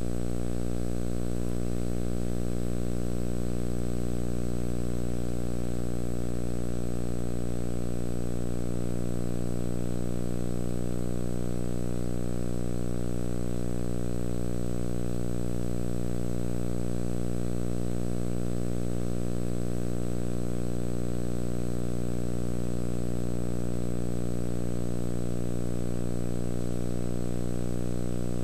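Steady electrical buzzing hum, unchanging throughout, with a faint thin high whine above it.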